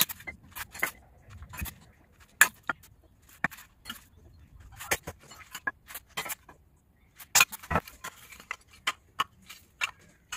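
Thin wooden kindling sticks being handled and knocked together, making a string of irregular sharp clicks and clacks, with a few louder knocks.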